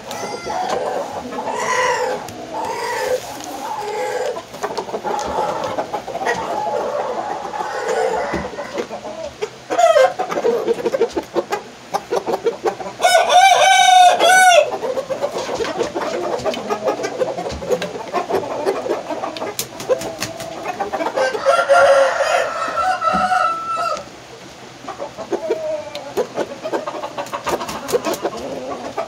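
Rooster clucking, crowing loudly twice: once near the middle and once later on.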